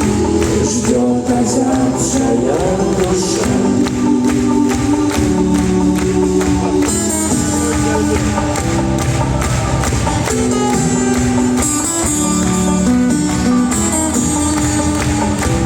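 Rock band playing a song live, with a steady drum beat and long held notes.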